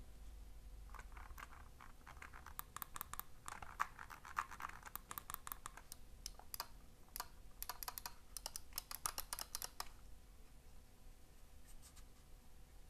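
Razer Basilisk V3 gaming mouse clicked by hand, its buttons pressed over and over in quick runs, with a scratchy stretch in the middle; the clicking stops about ten seconds in.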